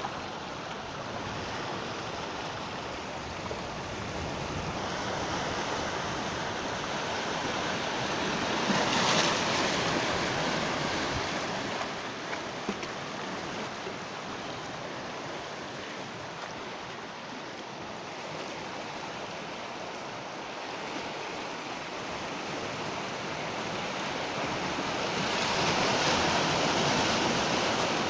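Sea waves breaking on a shore: a steady wash of surf that swells louder twice, as a wave breaks about nine seconds in and again near the end.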